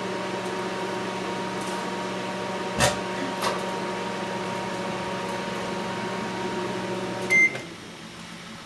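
Microwave oven running with a steady electrical hum while a CD inside arcs, giving two sharp cracks about three seconds in. Near the end a short beep sounds and the hum cuts off as the oven stops.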